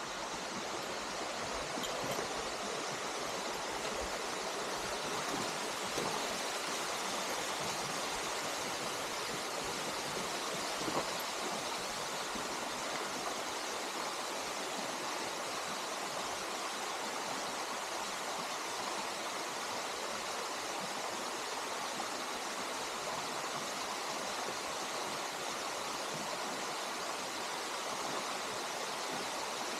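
Waterfall and mountain stream rushing: a steady, even roar of falling and flowing water.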